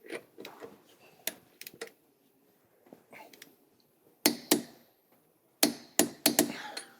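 Sharp metallic clicks and knocks from a torque wrench and hand tools as a hub nut is tightened: a few scattered clicks, then louder ones in pairs and a quick cluster in the second half.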